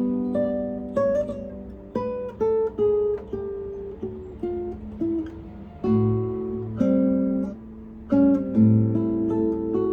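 Solo acoustic guitar playing a piece of single plucked notes, each left ringing on into the next, with deeper bass notes about six seconds in and again near the end.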